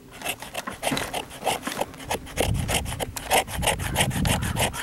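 Knife blade scraping down a resin-rich fatwood stick in quick, even strokes, about six a second, rasping off fine resin dust for fire tinder.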